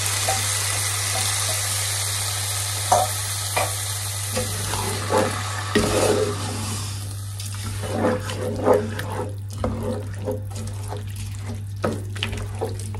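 Vegetables and lentils sizzling in a large stock pan as canned chopped tomatoes go in. The sizzle fades over the first half, and a wooden spoon stirring, scraping and knocking against the pan takes over. A steady low hum runs underneath.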